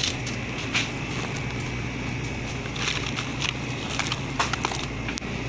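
Plastic-wrapped frozen meat packs crinkling and clicking in scattered bursts as a gloved hand sorts through them, over a steady background hum.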